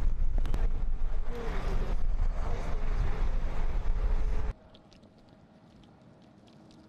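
Roadside ambience: a heavy low rumble of wind on the microphone over running vehicles, with faint voices in the middle. It cuts off suddenly about four and a half seconds in to a much quieter background.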